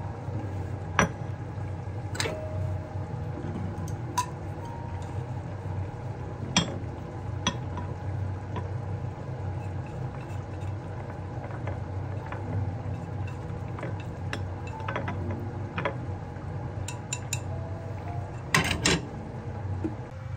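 Chopsticks clinking and scraping against a small frying pan and a ceramic plate as scrambled eggs are served. The clinks are sharp and scattered, the loudest ones near the end, over a steady low hum.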